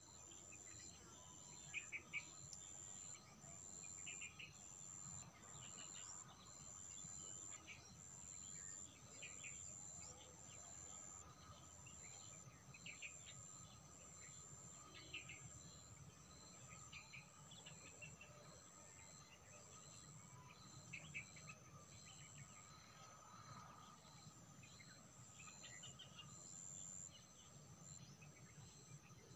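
Faint high-pitched insect trilling in the field, pulsing on and off about once a second, with scattered short chirps.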